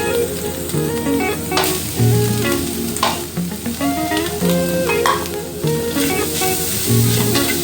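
Barbecue pork, string beans and mushrooms sizzling as they are stir-fried in a pan, with a few sharper strokes about one and a half, three and five seconds in. Background music with a plucked guitar melody plays along.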